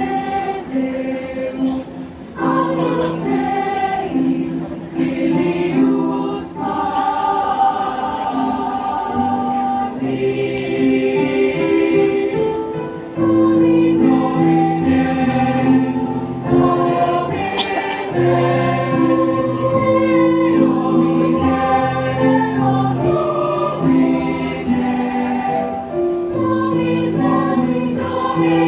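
Children's choir singing a church song in several parts, with sustained notes that move from chord to chord.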